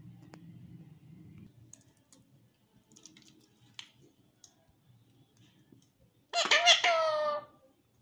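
Alexandrine parakeet giving one loud, harsh squawk lasting about a second, near the end, after a few faint clicks.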